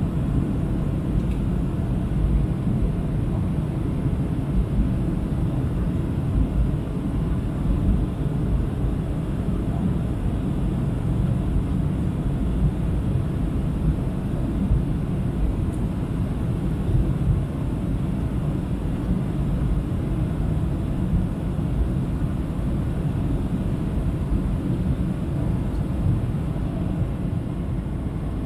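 Steady low rumble of engine and airflow noise inside the cabin of a Boeing 737-700 airliner descending on approach, even and unchanging throughout.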